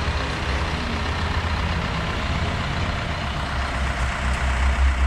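Isuzu NRR's four-cylinder turbo-diesel engine idling steadily.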